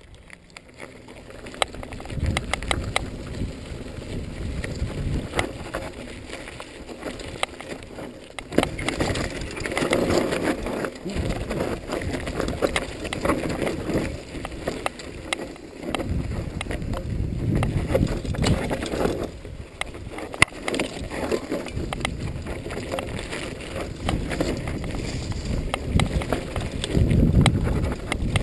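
Mountain bike descending a dry dirt trail: knobby 26x2.5 Continental Mountain King tyres rolling over dirt and small rocks, with many clicks and rattles from the Norco Storm hardtail and wind buffeting the microphone. The noise swells and eases several times.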